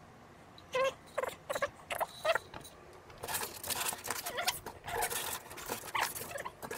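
White packing-foam blocks squeaking and rubbing against each other and the wooden crate as they are pulled out: several short squeaks in the first half, then denser scraping and rustling.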